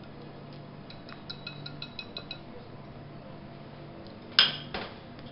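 Wire whisk tapping against a glass bowl of sauce: a quick run of light, ringing clinks, about six a second. Then a single louder metallic clink about four and a half seconds in.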